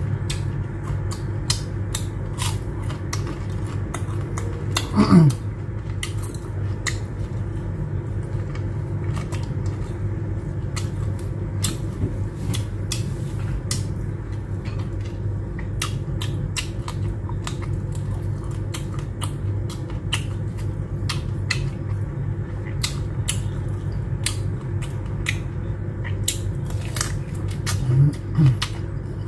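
Close-miked eating sounds: chewing and lip-smacking heard as many small sharp clicks over a steady low hum. There is a short vocal sound, falling in pitch, about five seconds in, and another brief one near the end.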